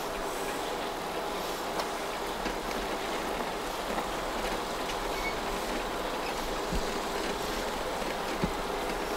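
Machinery running steadily, a constant mechanical din with a faint hum, broken by a couple of short clicks near the end.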